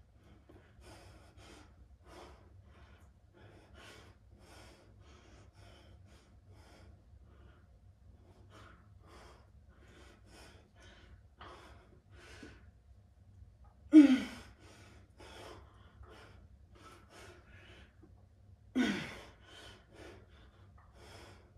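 A man breathing hard from the strain of heavy bicep curls pushed to exhaustion, with two loud exhales whose pitch falls, about two-thirds of the way in and again near the end.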